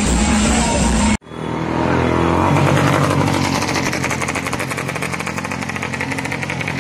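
Loud music with a steady beat cuts off abruptly about a second in. A motorcycle engine then runs with rapid even pulsing, revving up and settling into a steady run.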